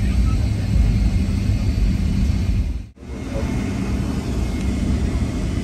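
Steady low rumble of a Boeing 757's jet engines and cabin, heard from inside while the airliner taxis. About three seconds in it drops out for a moment, then resumes.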